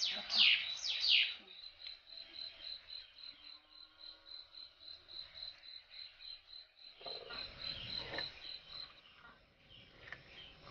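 Crickets chirping at night: a steady train of short chirps, about four a second. Three loud, quickly falling calls come in the first second or so, and a brief burst of noise comes about seven seconds in.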